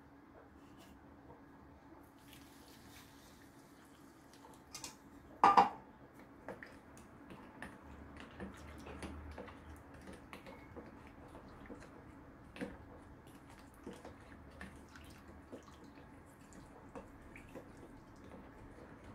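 Lukewarm water splashes briefly into a stainless steel bowl of curry powder about five seconds in. A wooden spoon then stirs the curry paste, with soft irregular scraping and light taps against the metal bowl.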